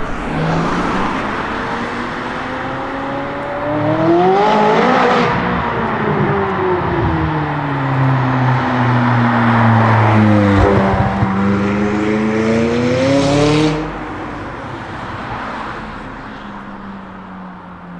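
Loud McLaren 600LT twin-turbo V8 with catless downpipes accelerating past: the engine note climbs twice under throttle, sliding down in pitch in between, then drops off sharply near the end and fades.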